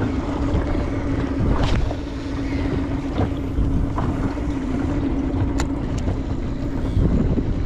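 Small boat's outboard motor running at a steady pitch, over a low rumble and water noise, with a few short sharp knocks.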